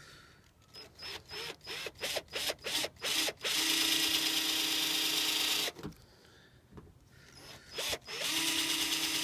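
Cordless drill boring a pilot hole through the van's sheet-metal roof. First it goes in a quick string of short trigger bursts, then a steady run of about two seconds that stops suddenly. After a pause it starts again and runs steadily near the end.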